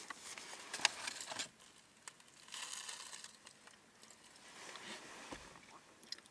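Faint crinkling of aluminium foil takeout pans and light clicks of plastic forks being handled while eating.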